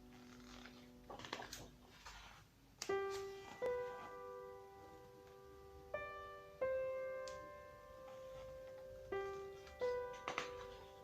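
Background piano music: a slow melody of single sustained notes, each struck and left to ring.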